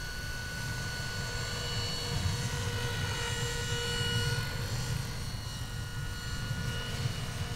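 Minicopter Heli-Baby radio-controlled scale helicopter in flight. Its Plettenberg electric motor and drive give a steady high whine over the low noise of the main rotor, and the sound grows louder around the middle as it passes close.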